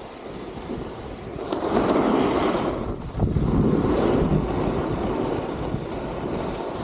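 Snowboard sliding and carving over groomed snow, a rushing scrape that swells about a second and a half in and again just after three seconds as the board turns, with wind on the microphone.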